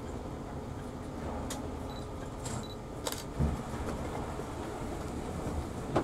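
Bus engine and road rumble heard from inside the cabin as the bus pulls in to a stop, steady and low, with a few light clicks and rattles and a single thump about halfway through.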